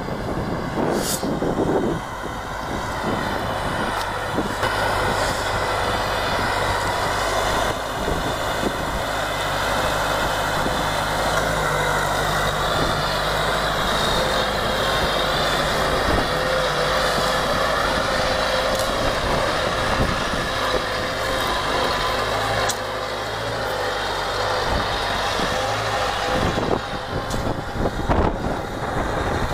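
Tümosan tractor's diesel engine running steadily under load while pulling a tiller through the soil.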